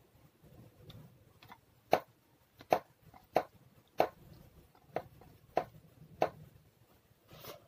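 Close-miked eating sounds: chewing with a regular series of sharp, wet mouth clicks, about one every two-thirds of a second, and a short breathy rustle near the end.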